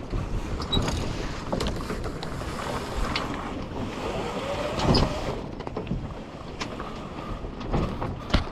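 Wind buffeting the microphone and water rushing and splashing along the hull of a small sailboat under way, with scattered knocks from the boat.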